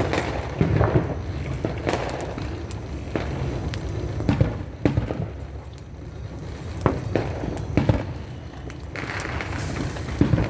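Fireworks and firecrackers going off: irregular sharp bangs and pops over a steady low rumble, with a hissing, crackling stretch near the end.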